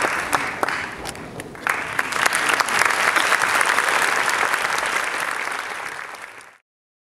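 Audience applauding in a theatre, a dense clatter of many hands clapping. The clapping thins for about half a second a second in, swells again, then fades and stops abruptly near the end.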